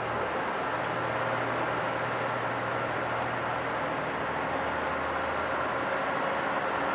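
Steady machine drone from a Boeing 777 being towed: a constant low engine hum with a steady high whine over it.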